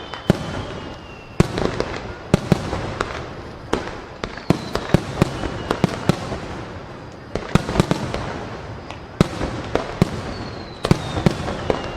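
Aerial fireworks shells bursting in quick succession: many sharp, echoing bangs, some in rapid clusters, over continuous crackling. A few high whistling tones slide down in pitch through the barrage.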